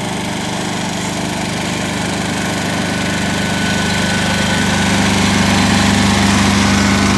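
Ride-on lawn tractor engine running steadily, growing louder as the tractor drives up and passes close by.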